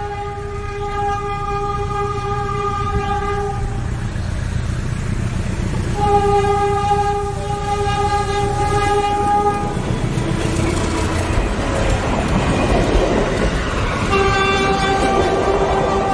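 Train horn sounding three long blasts, each three to four seconds, over the steady rumble of a moving train. Between the second and third blasts a rushing noise swells up.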